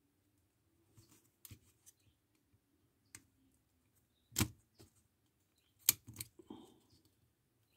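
Small scratches and sharp clicks, the two loudest about four and a half and six seconds in: a soldering iron tip and wire leads scraping and tapping against a welding helmet's circuit board as the battery wires are desoldered.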